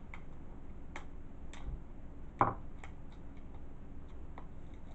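Scattered light clicks and taps of a small metal tool picking at the shrink wrap on a plastic Blu-ray case, with one louder knock about halfway through.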